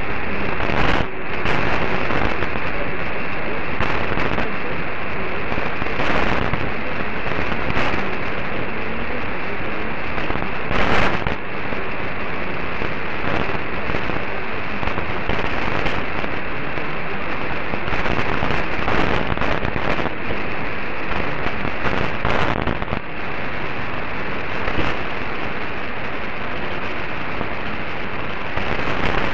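Weak long-distance medium-wave AM signal on 954 kHz demodulated by a software-defined radio: a steady, muffled rush of hiss and static with irregular crackling static crashes every few seconds, and the programme buried in the noise.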